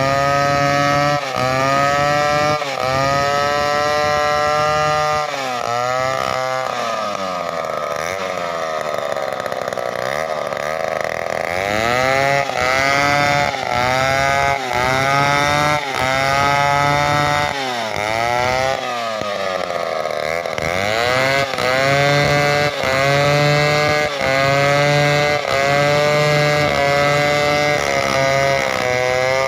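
Two-stroke chainsaw running at high revs while cutting timber. Its engine pitch drops and climbs back again every second or two as it works through the wood and the throttle is eased and opened.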